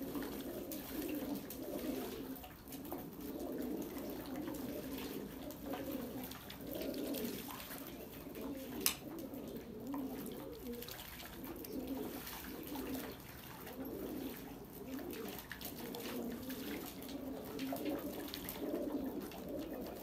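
A flock of domestic pigeons cooing continuously, many birds' coos overlapping. A single sharp click comes about nine seconds in.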